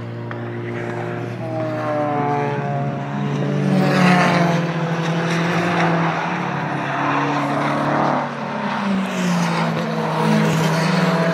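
Racing car engines running hard on the circuit, the engine note climbing and dropping with gear changes, loudest about four seconds in.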